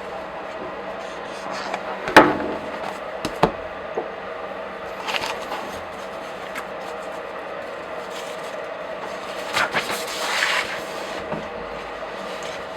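Pages of comic books and graphic novels turned by hand: a few papery swishes and rustles, with a sharp paper snap about two seconds in, the loudest sound, and a couple of lighter clicks just after.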